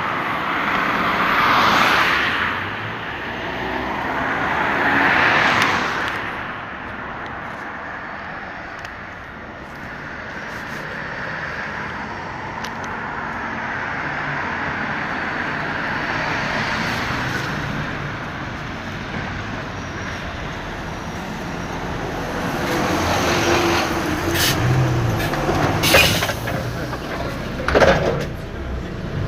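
Road traffic going by, with two vehicles passing in the first six seconds. Near the end a bus draws up, with two sharp hisses typical of air brakes.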